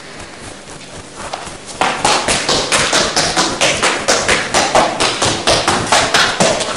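Quick footfalls of a performer running across a stage floor: a rapid series of sharp steps, about four or five a second, starting about two seconds in.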